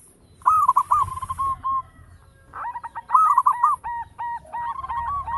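Zebra dove (perkutut) cooing: a short phrase of quick notes about half a second in, then, after a brief pause, a longer run of rapid repeated coos that carries on past the end.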